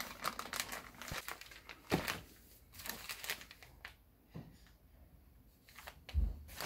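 Plastic mailer bag and paper wrapping crinkling and rustling as a paper-wrapped roll of fiberglass cloth is pulled out, then a quieter pause and a low thump near the end.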